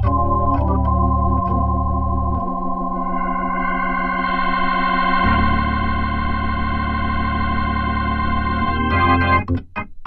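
Hammond organ played through a Leslie rotating speaker: long held chords over low bass notes, breaking into a quick run of short notes near the end.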